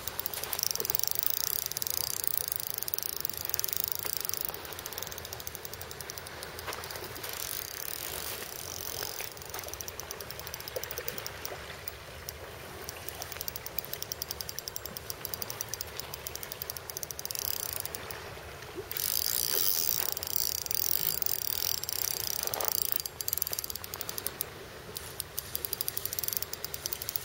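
Spinning reel ticking rapidly and steadily while a hooked European sea bass is played on the line, easing off briefly about two-thirds through.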